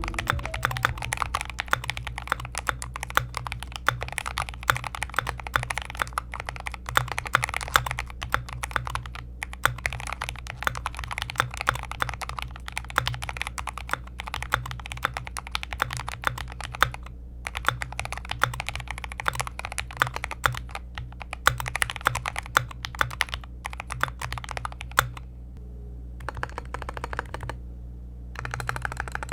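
Custom mechanical keyboard with lubed, filmed Gateron Black Ink V2 linear switches, Drop /dev/tty keycaps and a wooden case being typed on steadily in fast runs of key clicks, with a few brief pauses.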